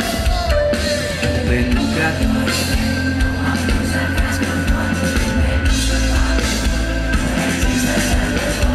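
Live band playing a pop-rock song on drum kit and bass guitar, loud and steady.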